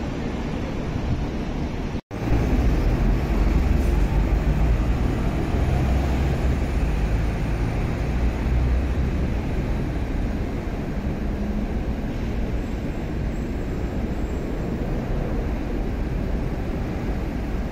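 Steady low rumble of passing road traffic. It cuts out for an instant about two seconds in, then comes back louder.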